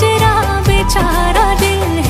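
Background Hindi film-style song: a singer's voice gliding over the backing music.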